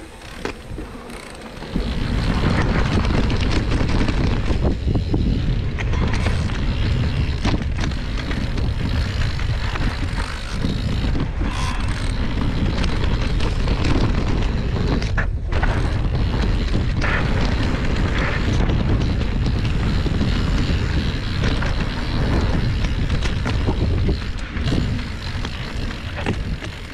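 Mountain bike riding fast down a dirt singletrack: knobby tyres rumbling over the dirt and wind buffeting the bike-mounted camera's microphone, with clatter over bumps. It gets loud about two seconds in and stays heavy after that.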